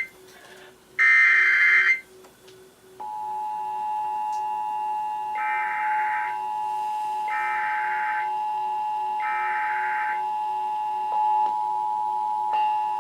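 Emergency Alert System test signal: a screeching digital data burst of the SAME header about a second in, then the two-tone attention signal (853 and 960 Hz together) starting about three seconds in and holding steady. Three shorter data bursts, each about a second long, sound over the tone about two seconds apart.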